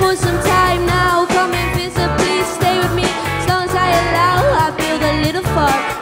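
A rock band playing live: a female singer sings a wavering melody into a handheld microphone over electric guitars and a steady beat.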